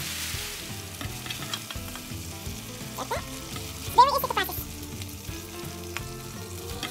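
Stir-fried string beans and shrimp sizzling in a frying pan as a slotted spoon stirs and scoops them out, scraping against the pan. There are two louder squeaky scrapes about three and four seconds in.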